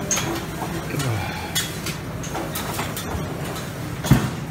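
Restaurant buffet clatter, clinking dishes over steady room noise, with a plate set down on a table with a sharp knock about four seconds in.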